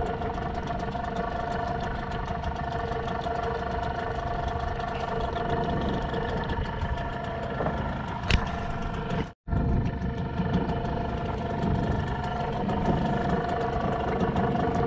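Small boat's engine idling steadily, a constant engine hum under a low rumble. A sharp click about eight seconds in, and the sound cuts out completely for a moment just after.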